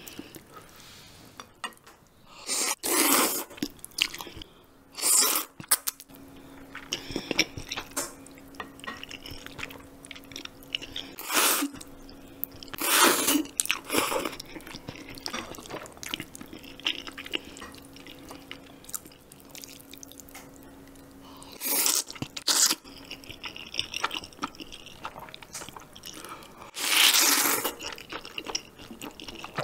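Close-up eating sounds of thick noodles in spicy seafood noodle soup: about seven loud slurps of a second or less, spread through, with wet chewing between them.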